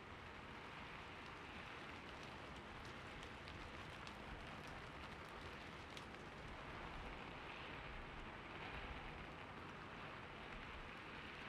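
Soft, steady hiss of falling and splashing water, with faint scattered droplet ticks.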